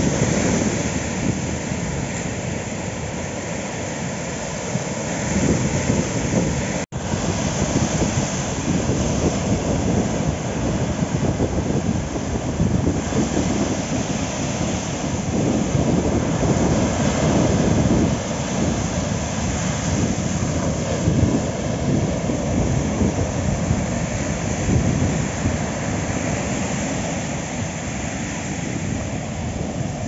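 Strong wind buffeting the microphone over rough surf breaking and washing up the beach. The sound cuts out for an instant about seven seconds in.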